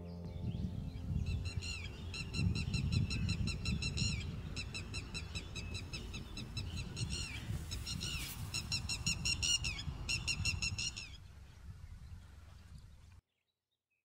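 Red-wattled lapwing calling: several rapid series of sharp, repeated, high notes, with a low rumble underneath. The calls stop about 11 s in, and the sound cuts off abruptly a couple of seconds later.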